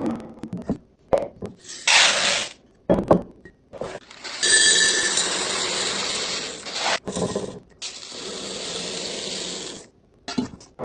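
Kitchen restocking handling sounds: a run of clicks and knocks, then two long, steady rushing sounds of about three and two seconds.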